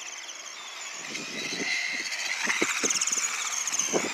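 Volcano 18 small-scale electric RC monster truck driving across a concrete skate bowl: a high motor and gear whine that rises in pitch as it speeds up about a second in, with irregular knocks and rattles from the truck bouncing over the concrete.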